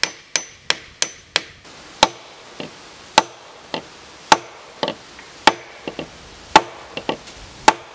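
Claw hammer driving a carved wooden dowel into a peg hole through a log joint. A quick run of about five blows opens, then steady single strikes roughly one a second.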